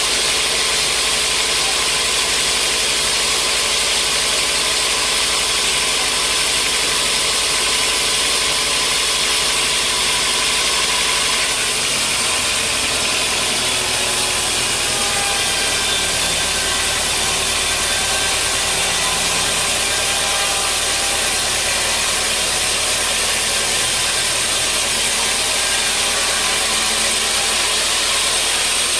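Sawmill machinery running steadily: a loud, even mechanical whir over a low motor hum, the hum changing pitch about twelve seconds in.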